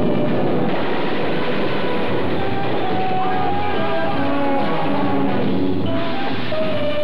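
Film-trailer music with long held notes at several pitches over a dense, busy backing.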